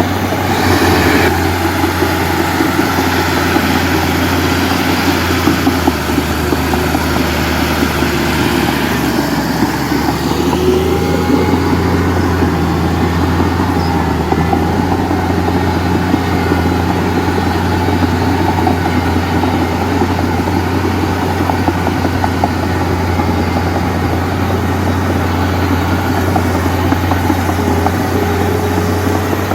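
Heavy diesel machinery engine running steadily, a constant low drone with a dense rattle over it.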